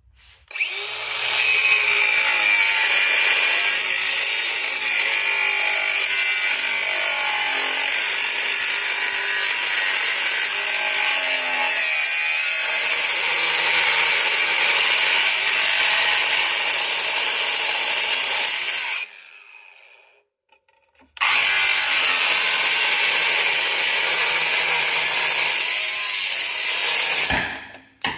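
A power tool running steadily with a strong hiss, in one long run of about eighteen seconds, a short pause, then a second run of about six seconds.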